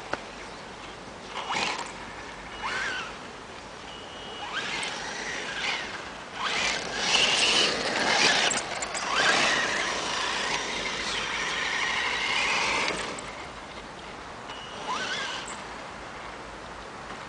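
Radio-controlled off-road car driven on loose gravel: short bursts of throttle, each with a quick rising motor whine, and the hiss and crunch of its tyres spinning and skidding on the gravel, loudest through the middle of the run.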